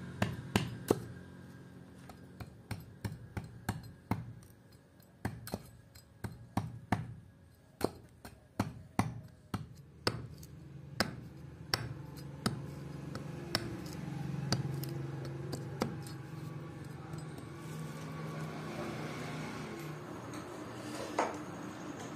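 An axe blade chopping and shaving a wooden handle blank against a log: a run of sharp, irregular chops, one or two a second, that stop after about sixteen seconds. After that a low steady hum is left, with one more knock near the end.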